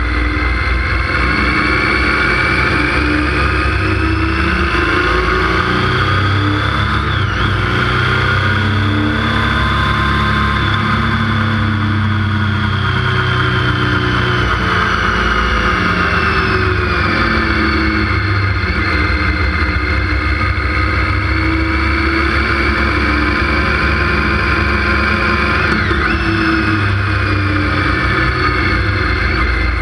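Motorcycle engine running under way, its pitch rising and falling slowly with road speed and dipping sharply twice, about 7 and 26 seconds in, over a steady low rumble of wind and road noise on the bike-mounted microphone.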